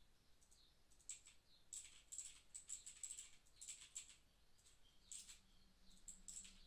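Faint, rapid clicking of a computer keyboard and mouse in use during gaming, in irregular bunches of keystrokes. A faint low hum comes in about five seconds in.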